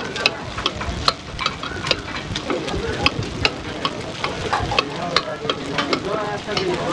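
Clatter at a busy food stall: rapid, irregular sharp clicks and knocks, with faint voices underneath.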